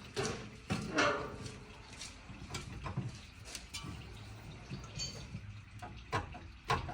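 Metal hand tools clinking and clicking irregularly during engine teardown work, with a sharper knock about a second in and two more near the end.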